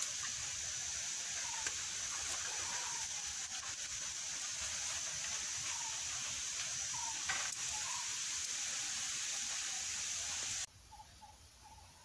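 Steady high-pitched hiss of forest ambience, with a few short chirps and an odd click over it. It cuts off suddenly near the end, leaving a fainter run of quick, evenly spaced chirps.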